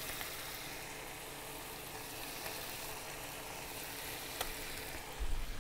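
Egg-roast gravy of onion, tomato and coconut milk sizzling steadily in the pan as it simmers, with a faint tick and a short low thump near the end.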